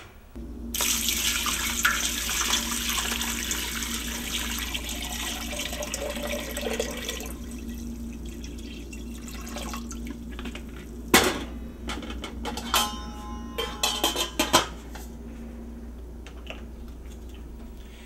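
Water pouring and splashing into a stainless steel stock pot for several seconds, then a run of metal clinks and knocks against the pot about two thirds of the way in. A steady low hum sits underneath.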